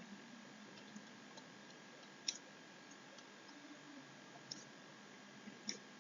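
Near silence broken by a few faint, sharp clicks, three of them clearer than the rest, over a faint steady high tone.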